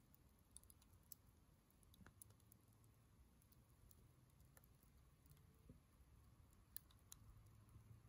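Wood bonfire burned down to glowing embers and small flames, crackling faintly with a few sharp, scattered pops.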